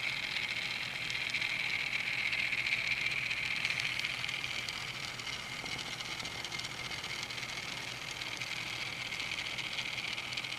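Steady high-pitched whine of a 'Teeny Trains' 1/1000-scale electric train set's small electric drive running at its single fixed speed, the set having no speed control. A faint low hum sits under it.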